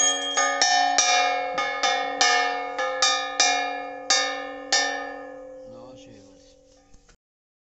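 Puja hand bell rung in even strokes, about three a second, during the lamp-waving of an aarti. The strokes stop about five seconds in and the ringing dies away.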